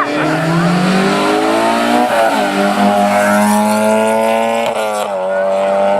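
Historic rally car engine revving hard under acceleration as the car drives the stage, climbing through the gears with upshifts about two seconds in and again near five seconds.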